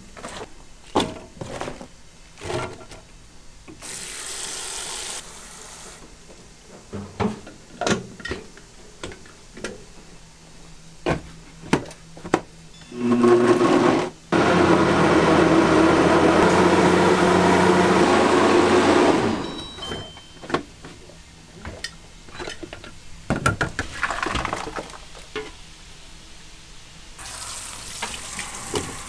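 Electric blender grinding peeled garlic in a stainless steel jar. It runs steadily and loudly for about six seconds, with a brief stop just after it starts. Before it come scattered knocks and clatter, and a kitchen tap runs briefly a few seconds in and again near the end.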